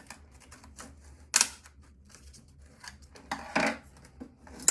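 A few sharp clicks and knocks from the parts of an old computer being handled and worked loose during disassembly, with faint rustling handling noise in between. The loudest click comes about a second and a half in, with more around three and a half seconds and one at the end.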